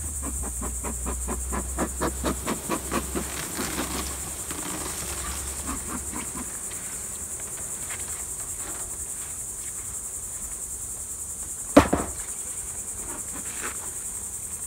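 A bee smoker's bellows pumped in quick, even puffs, about three a second, for the first six seconds or so, over a steady high drone of insects. A single sharp knock comes near the end.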